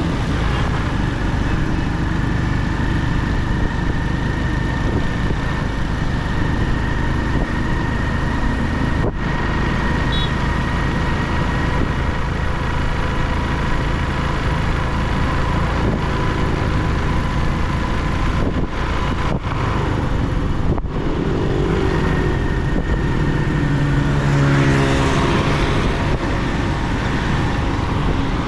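Motorcycle engine running while riding along a road, with steady wind rumble on the camera microphone. About three-quarters of the way in, another engine note swells and fades.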